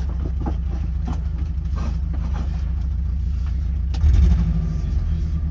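Truck engine idling with a steady low rumble, rising briefly louder about four seconds in.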